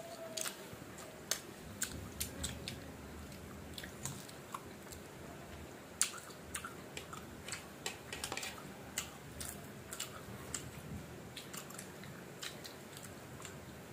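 Close-miked chewing and biting of crisp unripe mango slices: an irregular run of sharp crunches and wet mouth clicks, the sharpest about six seconds in.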